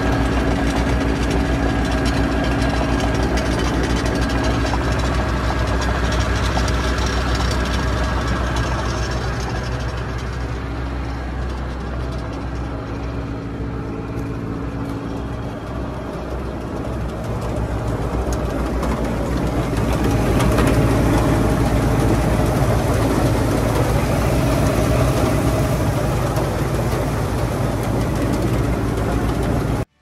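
New Holland TR89 combine harvester running with its threshing drives engaged: a steady drone of engine, belts and spinning shafts, run up for a pre-harvest check. It gets somewhat quieter midway and louder again after a few seconds.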